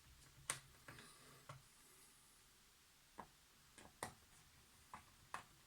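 Faint, scattered small clicks and taps of plastic and metal laptop parts being handled during reassembly of a Dell E5420, about seven separate clicks over a few seconds.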